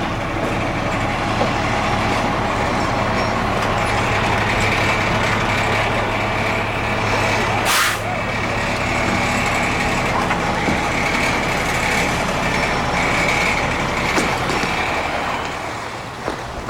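Large truck engine running steadily close by, with a short hiss about eight seconds in.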